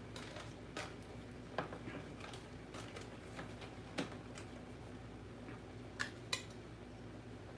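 Aluminium foil rustling and a metal utensil scraping and clinking against a foil-lined baking pan as food is served from it, with a few sharper clinks about one and a half, four and six seconds in, over a low steady hum.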